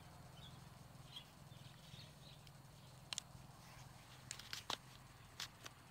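Quiet outdoor ambience: a low steady hum, a few faint high chirps in the first couple of seconds, and several sharp clicks in the second half.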